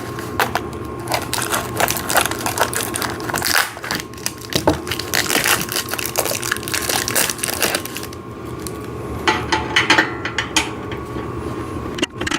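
Irregular clicking, clinking and scraping of metal parts being handled as a long bolt is worked through a steel frame tube during assembly.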